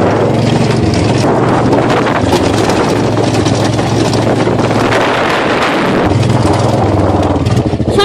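Golf cart driving along, its motor droning steadily under heavy wind noise on the phone's microphone. The drone dips out about five seconds in and picks back up a second later.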